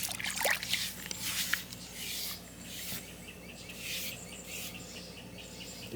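Hands scrubbing a wet dog's coat during a bath: an irregular rubbing, rasping hiss that comes and goes, with a few small clicks.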